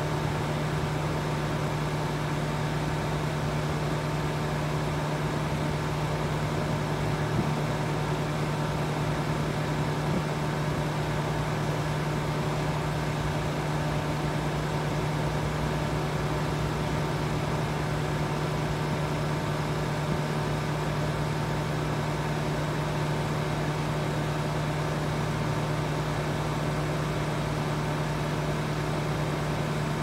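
Trane XR central air conditioner's outdoor condenser unit running steadily: a constant low hum under the even rush of the spinning condenser fan.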